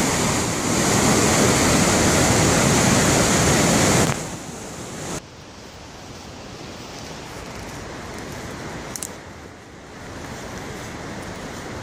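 Loud, steady rush of whitewater pouring through a rocky waterfall chute. About four seconds in it falls away sharply to a much quieter, steady rushing hiss.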